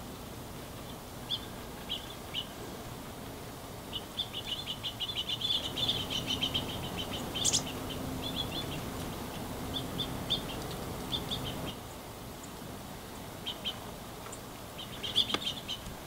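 Small songbirds chirping: scattered short, high chirps, a quick run of them through the middle, and another cluster near the end.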